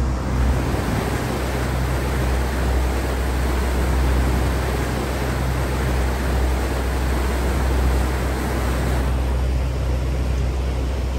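Passenger ferry's engines running at a steady low drone while under way, with a constant rush of wind and water over the open deck.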